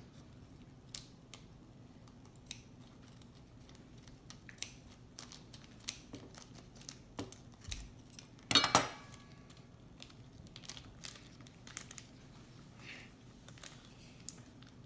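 Scissors cutting into a plastic toy bag, sounding as scattered small clicks and crinkles, with one louder crinkle or rip lasting under half a second about eight and a half seconds in.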